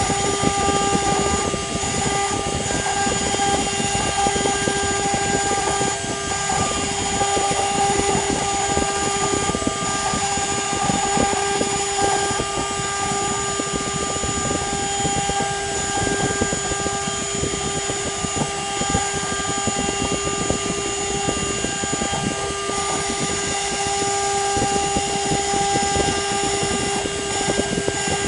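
CNC spindle motor running at a constant pitch while its engraving bit mills isolation traces into a copper-clad circuit board, with a continuous rough, crackly scratching from the bit cutting the copper and fibreglass.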